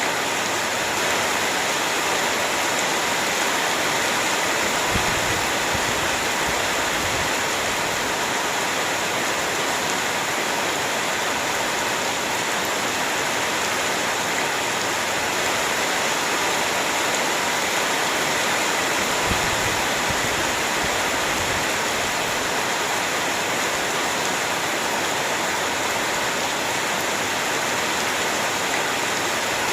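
Heavy rain falling steadily, a dense even hiss of water, with a brief low rumble twice.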